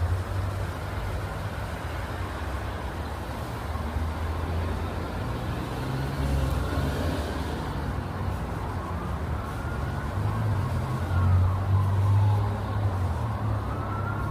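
Steady low rumble of road traffic, with a faint wailing tone that slowly rises and falls in pitch through the second half.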